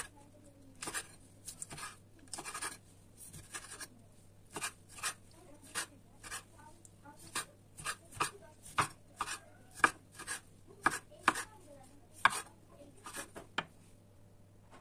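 Kitchen knife cutting cherry tomatoes on a wooden cutting board: the blade taps the board in a string of sharp, uneven knocks, about two a second through the middle, stopping shortly before the end.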